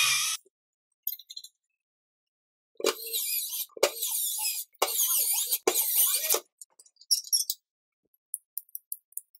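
Cordless drill driving screws through a steel hinge into a sheet-metal frame: a brief whir at the start, then four short runs of high whirring from about three to six and a half seconds in. Light metallic clicks follow as a steel barrel bolt is handled.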